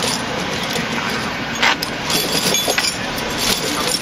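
Steel tire chain links clinking and rattling as the chain is draped over a skid loader tire, with a sharper clank about a second and a half in, over steady background noise.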